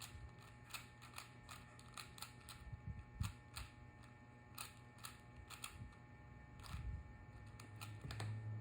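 A 4x4 Rubik's cube being turned quickly by hand, its plastic layers clicking in irregular runs of several clicks a second with short pauses.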